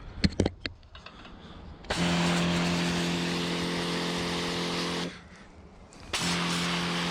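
Kärcher OC3 portable pressure washer's pump running while spraying water, a steady hum under the hiss of the spray. It runs in two spells: about three seconds starting two seconds in, then again near the end. A few sharp clicks just after the start.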